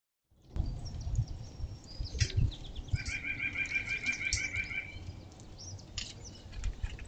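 Small songbirds chirping and calling at a backyard feeder, with a rapid, evenly repeated trill of short notes from about three to five seconds in. Scattered low bumps sound underneath, and the first half second is silent.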